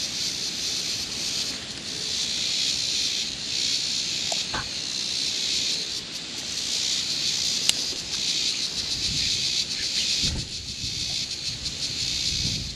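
Steady high-pitched buzzing of insects from the riverbank vegetation, with a couple of soft clicks and some low knocking near the end.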